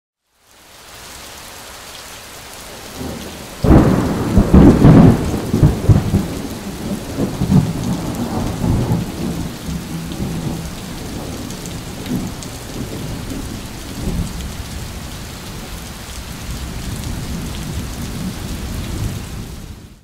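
Steady rain that fades in; about four seconds in a loud thunderclap breaks and rumbles away over several seconds, and the rain runs on until it fades out near the end.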